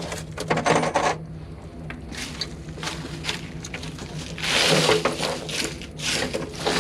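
Hands rummaging through dry debris and small plastic and metal scraps on the floor of a rusty steel enclosure: scattered crunches, rustles and light clicks, echoing off the metal walls. A longer rustling scrape comes a little after the middle.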